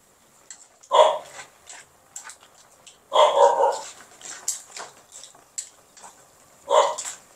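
A dog barking three times: about a second in, a longer bark around three seconds in, and again near the end, with faint clicks between the barks.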